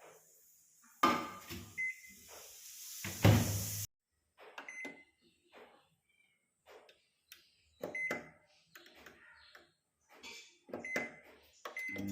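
Kitchen handling sounds: scattered knocks and clatter of things being moved, louder for a couple of seconds near the start, with a few short high beeps.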